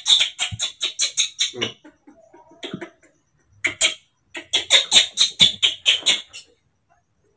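Newborn baby monkey calling in rapid strings of short, high, duck-like squeaks, about five a second, in two bouts with a pause of about two seconds between.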